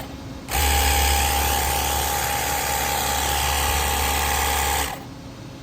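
Cordless battery-powered pressure washer spraying water with its trigger held: a steady motor and pump hum under the hiss of the spray. It starts about half a second in and cuts off suddenly about a second before the end.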